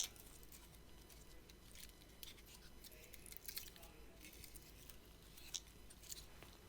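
Near silence: quiet room tone with a few faint, soft clicks scattered through it.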